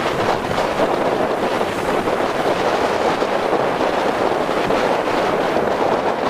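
Steady wind rushing over the microphone aboard a moving boat, an even, loud roar with no distinct engine note or other events.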